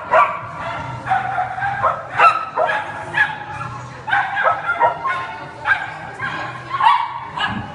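A dog barking over and over in short, high-pitched yips, about two or three a second.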